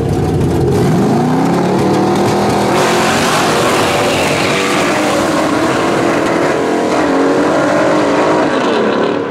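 Two drag cars' engines revving at the line, then launching at full throttle about three seconds in and running hard down the strip. One is a stick-shift Ford Fairmont station wagon's small-block Ford V8 on nitrous, which the owner says was breaking up on the top end from a fuel pressure problem.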